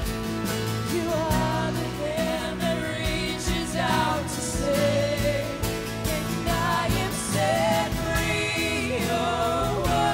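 A woman singing lead in a live worship song, backed by acoustic guitar and a band keeping a steady beat.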